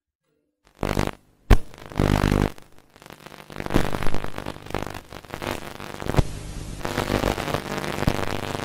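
Glitch-style outro sound effects: abrupt distorted bursts and a sharp click in the first few seconds, then a steady electronic music bed.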